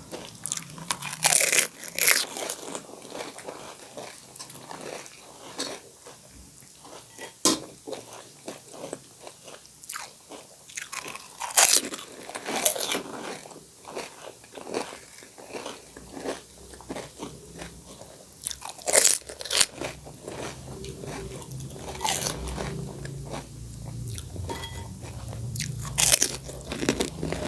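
Crisp panipuri shells being bitten and chewed, with irregular sharp crunches over quieter wet chewing.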